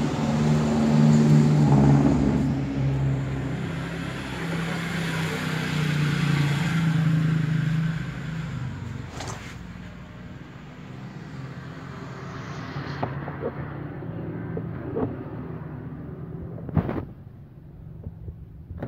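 Bass-heavy music playing loudly through two bare woofer drivers powered by a TDA7498 class D amplifier module, heard as a boomy, rumbling playback test; the volume drops about eight seconds in. A sharp click comes near the end.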